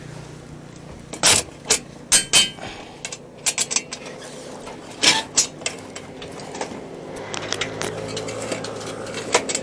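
Irregular sharp clinks and knocks, about a dozen of them, the loudest bunched between one and three seconds in and around five seconds in, over a steady low hum.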